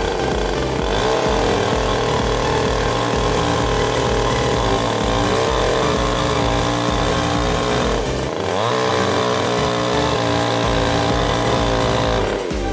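Vermogen 5220 two-stroke petrol chainsaw running at high revs as its chain cuts through a log. The engine pitch dips and recovers about eight seconds in, and falls near the end.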